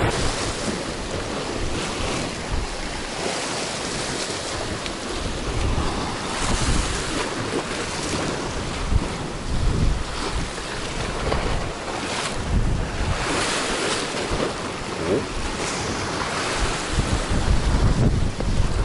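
Sea surf washing and foaming over shoreline rocks, with gusts of wind buffeting the microphone.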